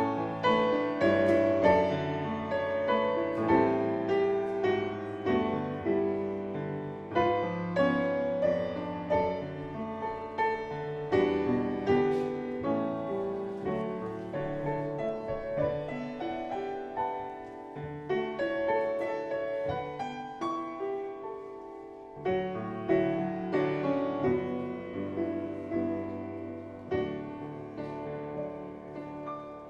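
Solo piano playing a slow, gentle prelude in chords and flowing runs. The last chord rings and fades away near the end.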